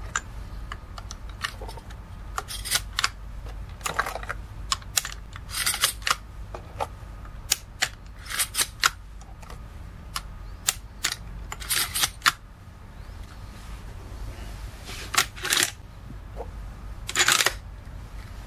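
Sharp metallic clicks and clacks as 45-70 cartridges are handled and pushed one at a time through the loading gate into the tube magazine of a Pedersoli 1886 lever-action rifle. The clicks come in separate small clusters, with pauses between them.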